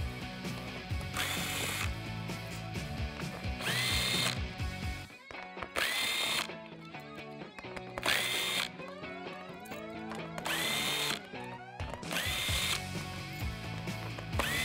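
Cordless power tool with a 7 mm socket running in about six short bursts, each spinning up with a quick rising whine, as it backs out the screws holding the plastic belly pan under the bumper. Background music plays underneath.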